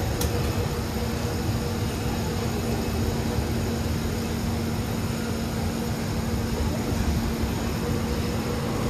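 MRT train running with a steady rumble and a low, even hum. There is one sharp click just after the start.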